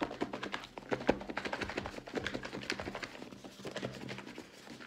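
Pasta salad with dressing being shaken inside a closed, lidded fibre takeaway bowl. The contents rattle and slap against the walls and lid in a rapid, irregular patter of taps.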